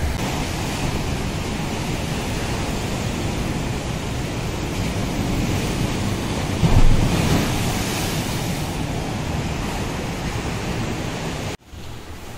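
Ocean surf breaking and washing up a sandy beach, a steady rush of waves with wind on the microphone; one wave hits louder about seven seconds in. The surf cuts off suddenly near the end.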